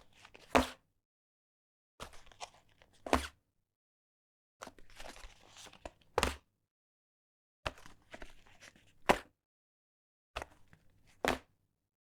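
A cigarette pack put down on a wooden table, five times over: each time a little soft handling rustle, then one sharp tap as the pack lands on the wood.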